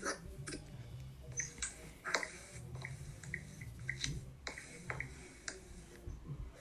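Quiet, irregular taps and clicks of a phone number being typed on a phone's touchscreen, over a low steady hum.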